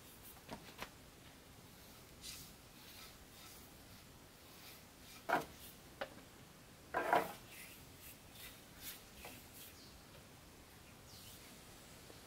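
Paintbrush brushing a glossy finish onto bare wooden furniture, a faint dry scratching of bristles on wood, with a few short knocks, the loudest two about five and seven seconds in.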